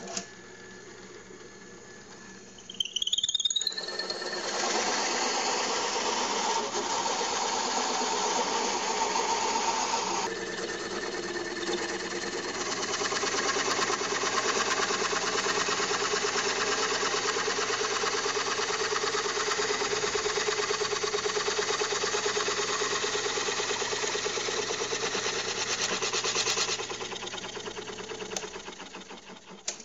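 A drill press drives a hole saw into a wooden block, making a steady, loud cutting sound over the motor's hum. The cut breaks out through the side of the block, so the sawdust clears as it cuts. The cut starts a few seconds in and dies away near the end.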